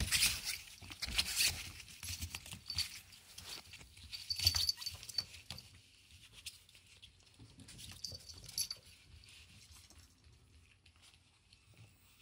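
Long-coat Chihuahua puppies scrabbling and playing on a nylon sheet: rustling and light clicking of paws and fabric, busiest in the first half and quieter after about six seconds.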